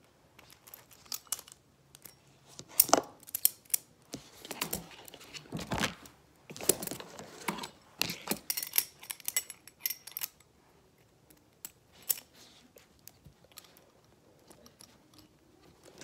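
Irregular metal clicks, clinks and light rattling as a small folding metal grappling hook is handled and turned in the hands.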